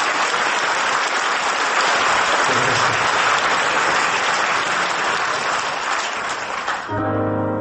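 Audience applauding loudly and steadily. Near the end the applause fades and a keyboard starts playing the song's intro.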